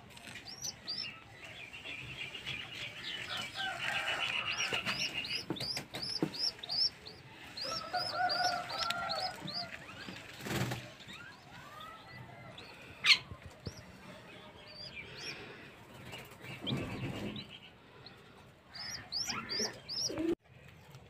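Pigeon squabs peeping: long runs of short, high, squeaky chirps, several a second, with a few lower squeaky calls in the middle. A single sharp click sounds about thirteen seconds in.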